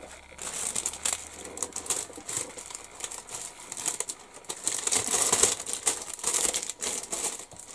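Plastic bubble wrap crinkling and crackling as it is handled and unwrapped from a boxed part, loudest about five seconds in.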